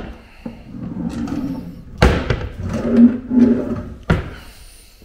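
Kitchen drawers sliding along their runners and being shut, with a sharp knock as a drawer closes about two seconds in and another about four seconds in.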